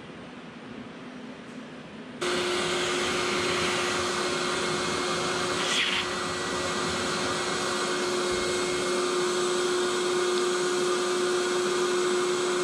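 A steady motor-driven whir, like a vacuum or blower, with a constant hum tone. It starts abruptly about two seconds in and stays level, with a brief scrape-like sound about six seconds in.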